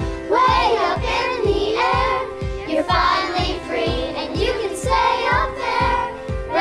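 A group of children singing together over backing music with a steady beat of about two thumps a second.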